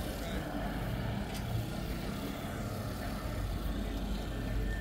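A motor vehicle's engine running steadily at low revs, a low rumble.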